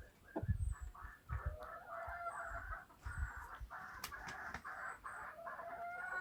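Chickens calling and clucking together in long, overlapping runs of calls. Low thumps and a couple of sharp clicks are heard alongside.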